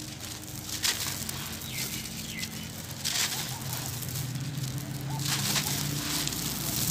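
Hands crushing clumps of packed dry sand: gritty crunching and crumbling with grains trickling and spilling, louder bursts about one, three and five seconds in.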